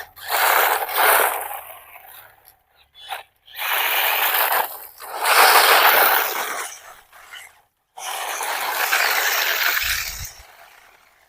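Brushless 4WD RC off-road car driven over rough ground in three bursts of a few seconds each, giving a rough scraping noise, with a short low thud near the end.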